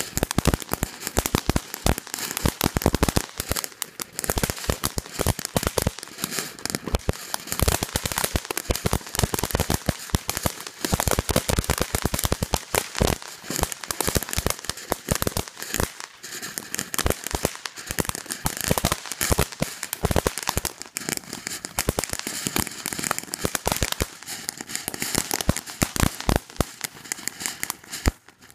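Ground fountain firework crackling: a dense, irregular stream of sharp pops and crackles that keeps going, thinning out a little near the end.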